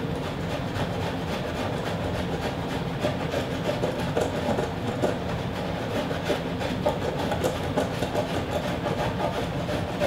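Handheld power tool running steadily against wood, with irregular scraping and clicking as it works along the rough live edge of a walnut slab.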